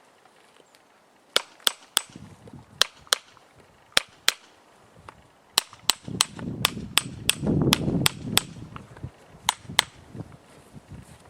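A farrier's hammer striking metal sharply, about eighteen ringing blows: a few pairs of taps, then a faster run of about three a second, then two more taps.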